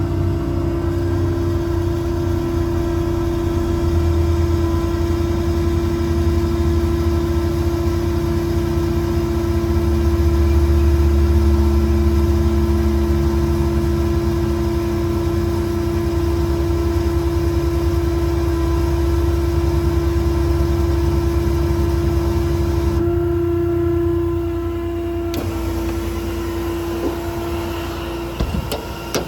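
The truck's 6.7 Cummins diesel engine running, with a steady whine over it. The low rumble swells about a third of the way in and eases about three quarters of the way in.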